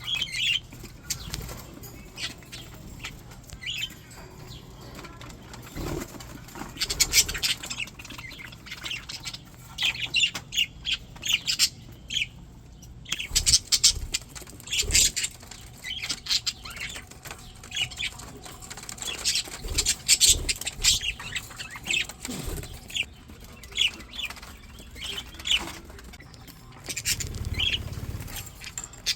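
A flock of English budgies chattering, with short high chirps and squawks coming in clusters, mixed with wing flapping and a few low thuds. There is a brief lull near the middle.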